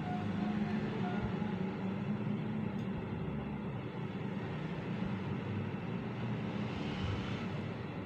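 Steady low rumble of background noise, even throughout, with a few faint ticks.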